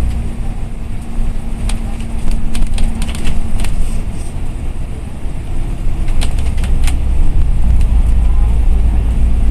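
Cabin noise of a moving bus: a steady low engine and road rumble with a constant hum. Short sharp clicks come a couple of seconds in and again past six seconds.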